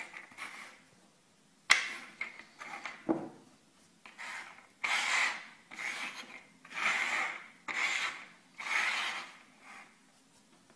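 Hand rubbing and scraping small treats across a wooden tabletop, with a sharp tap a little under two seconds in, then five rasping strokes in a row.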